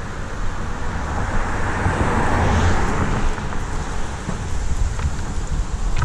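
Longboard wheels rolling fast on an asphalt road during a downhill run, with wind rushing over the GoPro microphone. It is a steady, dense rumble and rush that swells a little about two seconds in.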